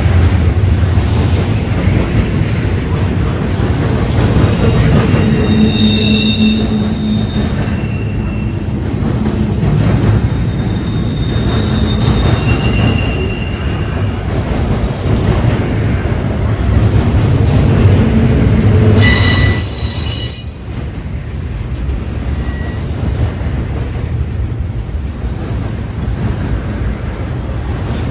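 Intermodal freight train rolling past, a heavy steady rumble of wheels on rail with thin high wheel squeals now and then. About 19 seconds in comes a louder, shrill squeal, and just after it the rumble drops off sharply to a lower level.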